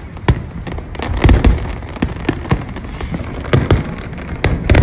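Fireworks display: aerial shells bursting in quick succession, a steady string of sharp bangs over low rumbling, with the heaviest run of bangs near the end.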